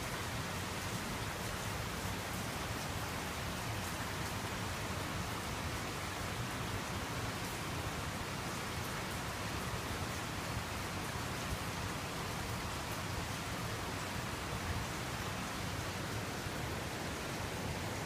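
Very heavy typhoon rain pouring down steadily in an even hiss, with the fine patter of drops on wet surfaces.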